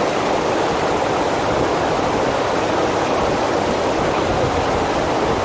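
Steady rush of water from a FlowRider surf machine, the pumped sheet of water pouring continuously over the ride surface.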